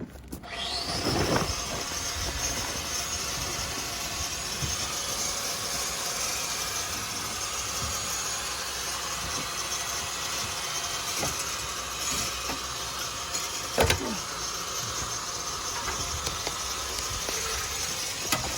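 Gas torch flame burning with a steady hiss. It comes on just after the start and is broken by two short knocks, the louder one about fourteen seconds in.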